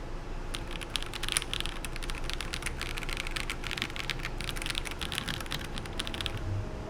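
Mathew MK86 mechanical keyboard with KTT Wine Red linear switches being typed on quickly: a dense, steady run of key clacks.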